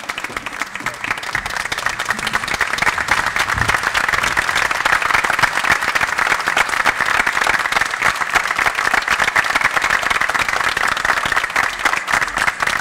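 A large audience applauding, dense, steady clapping that builds over the first couple of seconds and then holds, as a musical performance ends.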